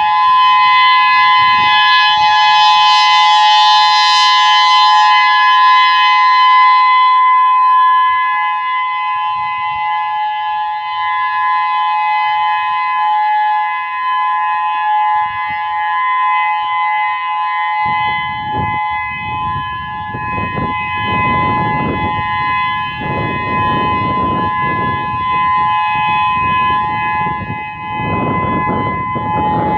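Whelen WPS-3016 electronic outdoor warning siren sounding a steady tone of two close pitches during its test, the pitch neither rising nor falling. The sound brightens for a few seconds near the start. From a little past halfway, a gusty low rushing noise comes in under the tone.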